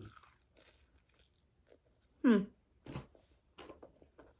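A person's brief vocal sound falling in pitch about two seconds in, with faint scattered clicks around it.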